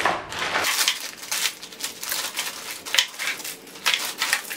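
Thin clear plastic bag crinkling and rustling as hands open and crumple it, in quick irregular crackles.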